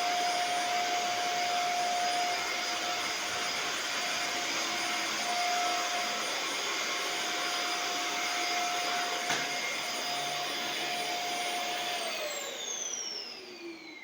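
Vacuum cleaner running steadily with a whine over its rushing air, then switched off about twelve seconds in, its motor whine falling in pitch as it winds down.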